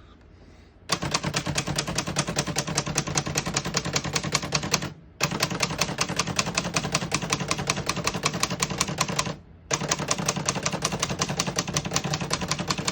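A 1970 Hermes Rocket manual portable typewriter typing in fast, even keystrokes, about ten a second, in three long runs with short pauses about five and nine and a half seconds in.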